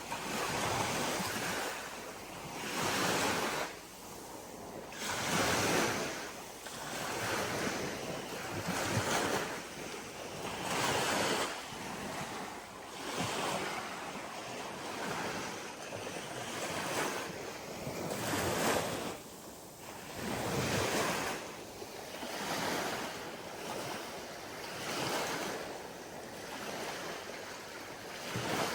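Ocean waves breaking and washing on the shore, swelling and ebbing in surges every two to three seconds.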